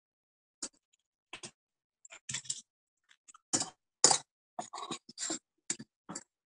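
A serving spoon scraping and knocking against a small stainless-steel saucepan of sauce as it is stirred and spooned: a string of short, separate clicks and scrapes.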